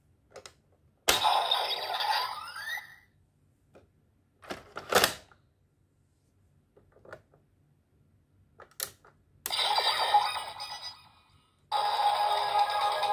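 Bandai DX Zero-Two Driver toy belt being operated: sharp plastic clicks as the Progrise Key goes in and the driver is opened, answered twice by electronic sound effects from its speaker, one with a rising glide. Near the end, a loud continuous electronic jingle starts from the toy.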